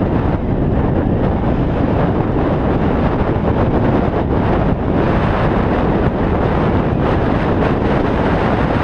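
Loud, steady wind rushing over the camera microphone of a bicycle riding downhill over snow, with a few faint knocks.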